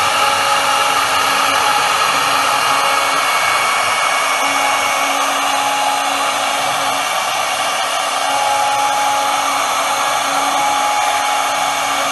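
CNC router spindle running at high speed with a V-shaped engraving bit cutting grooves into a wooden board: a steady high whir with cutting noise, and fainter lower tones that come and go as the axes move.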